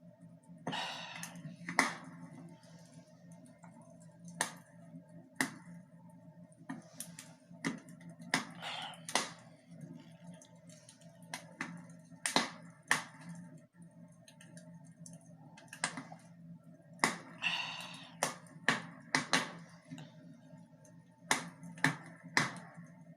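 Fire crackling in a fireplace: sharp, irregular pops and snaps over a steady low hum, with three longer hissy rushes about a second in, near a third of the way and about three-quarters through.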